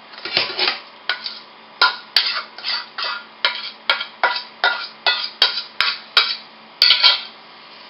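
Raw meatloaf mixture being scraped by hand out of a stainless steel mixing bowl into a metal pan: a run of short metallic scrapes and clinks, about two or three a second, stopping about a second before the end.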